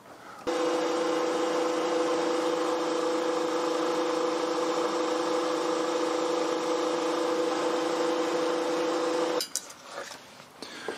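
Milling machine spindle running steadily with a small end mill taking a light first pass along the jaw of a lathe parting blade: an even hum with two steady tones. It starts abruptly about half a second in and stops abruptly near the end.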